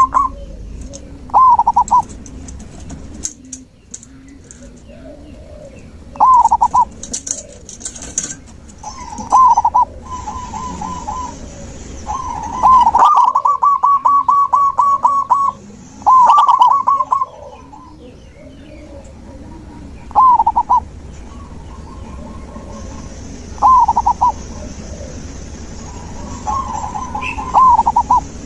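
Zebra doves (perkutut) cooing: short bursts of rapid staccato coos, each lasting about a second and repeated every few seconds. Fainter chirps of other birds sound in the background.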